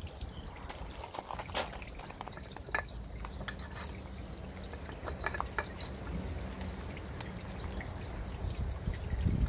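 A dog sniffing and nudging tennis balls around a metal muffin tin, with scattered clicks and knocks as the balls and its muzzle hit the tin, over a steady low rumble.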